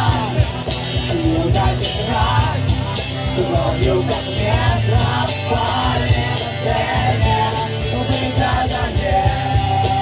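Live band playing a rock song: voices singing over acoustic and electric guitars, with a steady beat.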